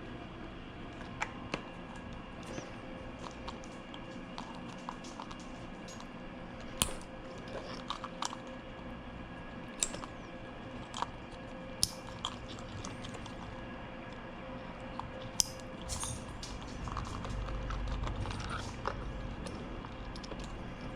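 Scattered sharp clicks and taps of plastic wiring connectors being handled and pushed together, over a steady low hum; a low rumble swells briefly near the end. The plugs don't mate: the connector is the wrong one and won't fit.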